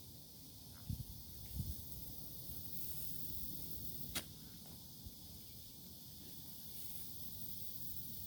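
Outdoor ambience: a steady high hiss over a low rumble, with two dull thumps about a second in and a single sharp click near the middle.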